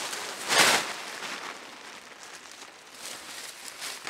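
A large waterproof sheet being shaken out and spread over dry leaves, its fabric rustling and crinkling. There is a loud rustle about half a second in, then quieter rustling, with rustles of leaf litter underfoot.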